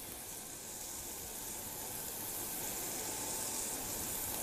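Sliced onion frying in oil in a sauté pan, a steady sizzling hiss.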